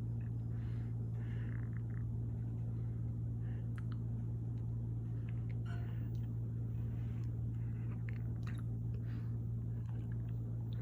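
Fanimation Blitz DC-motor ceiling fan running with a steady low hum.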